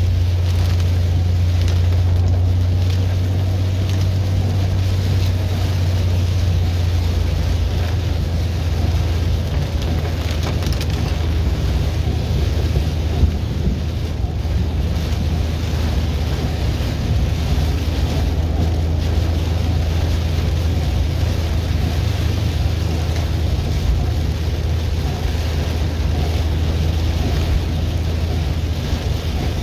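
Car driving on a wet road in rain, heard from inside the cabin: a steady low drone of engine and road noise, with the hiss of tyres on water and rain on the car.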